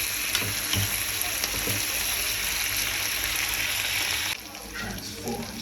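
Pork chops with onions, garlic and peppers sizzling in a frying pan, a steady hiss that cuts off suddenly about four seconds in.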